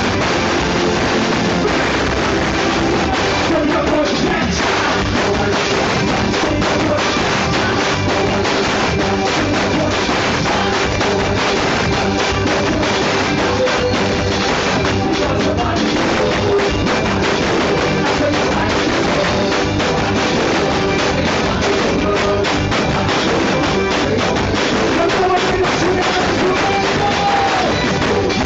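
Live band playing loud, steady dance music with a drum kit, keyboards and a singer.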